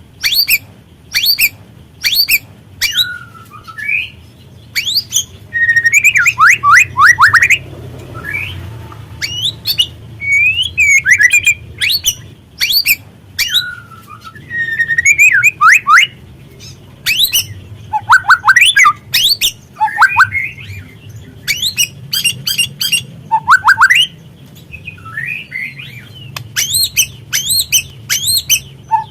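Juvenile white-rumped shama (murai batu trotol) calling: a stream of sharp clicking notes and harsh chatter, broken by quick runs of falling whistled notes.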